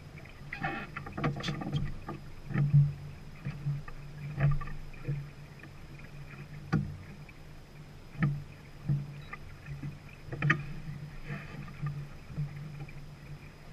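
Irregular knocks and slaps aboard a Peterson 34 sailing yacht under way, about one to two seconds apart, over a faint steady background.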